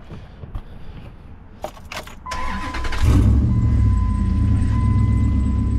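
Dodge Ram 2500's 5.7-litre Hemi V8 cranked by the starter and catching about three seconds in, then idling steadily and loudly. A steady electronic warning tone from the dash sounds along with it.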